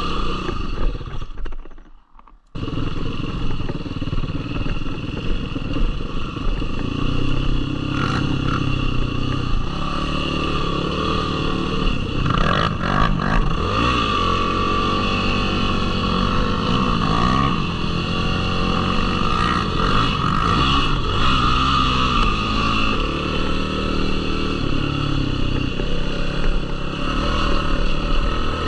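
Yamaha YFZ450R sport ATV's single-cylinder four-stroke engine running on trail, its pitch rising and falling as the throttle is worked. The sound drops out briefly about two seconds in.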